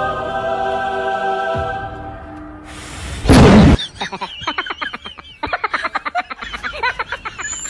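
Music with long held notes, then about three seconds in a single loud blast lasting about a second, followed by a fast, stuttering run of short pitched sounds.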